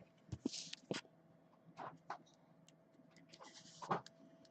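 Trading cards and a card box being handled: faint light taps and clicks, with two short rustles, one about half a second in and one near the end.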